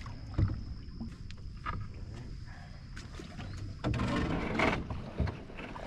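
Canoe paddling in shallow water: paddle strokes with scattered knocks of the paddle against the wooden canoe. About four seconds in, a louder rush of splashing water lasts about a second as the bow paddler works his paddle down into the shallows.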